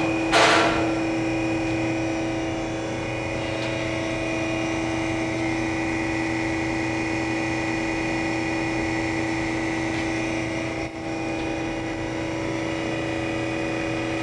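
Harig EZ-Surf surface grinder running without cutting, its spindle at 3,600 RPM, a steady machine hum with several constant tones. A short loud rasping burst about half a second in.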